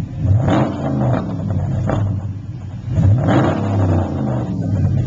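2009 Dodge Challenger's engine through an aftermarket dual exhaust, idling and revved in short throttle blips, about three times, each rising and falling back to idle.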